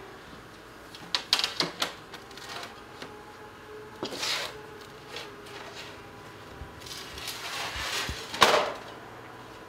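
Sheet metal being handled and worked at a hand-operated sheet-metal machine: a run of light metal clinks about a second in, a scraping rub around four seconds, then a longer rub ending in a sharp clank near the end.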